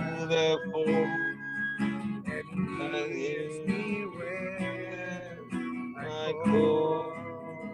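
A slow worship song: acoustic guitar strumming under a sung melody.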